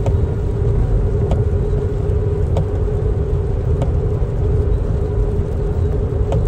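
Road noise heard inside the cabin of a moving car: a steady low rumble with a constant hum, and faint short ticks about every second and a quarter.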